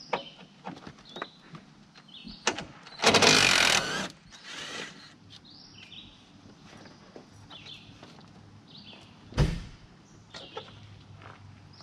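Cordless driver spinning a front bumper bolt for about a second, with a shorter second burst just after it. A sharp metallic knock comes near the end, and birds chirp throughout.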